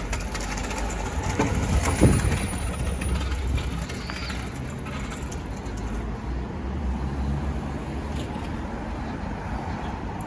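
Road traffic on a city street: a heavy vehicle's engine runs as a steady low rumble, over wind buffeting the microphone, with one sharp loud knock about two seconds in.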